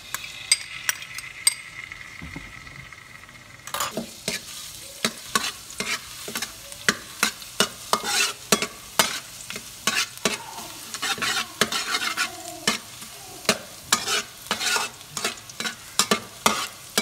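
Minced garlic sizzling in hot oil in a metal wok. From about four seconds in, a spatula scrapes and knocks against the wok again and again as the garlic is stirred.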